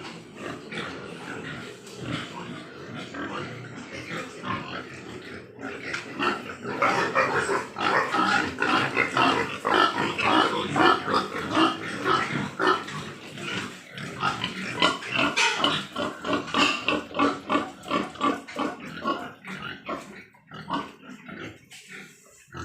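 A pen of Large White Yorkshire pigs grunting and squealing together in a continuous, overlapping din. It is loudest through the middle and thins out near the end.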